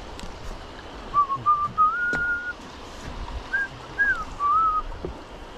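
A person whistling a short tune: a few short notes, one held note, then a few notes that rise and fall, over steady wind and water noise.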